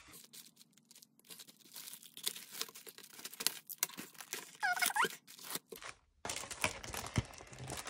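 Plastic packaging crinkling and tape being torn and peeled off cardboard as a taped-down item in a plastic sleeve is unwrapped: irregular rustling and tearing throughout, with a short squeak about five seconds in.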